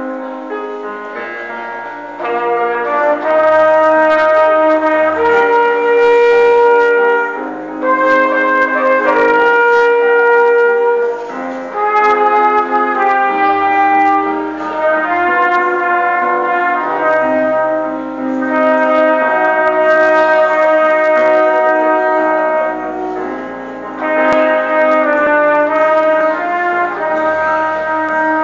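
A student wind band playing a slow piece, with brass to the fore holding long chords in phrases and a bass line underneath.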